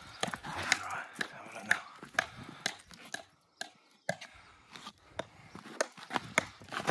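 Stones knocking against stone as they are handled and set in a wall: irregular sharp clacks and knocks, a few a second, with a short lull about three seconds in.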